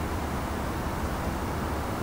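Steady urban background noise: a low, even hum of distant road traffic, with no bird calling.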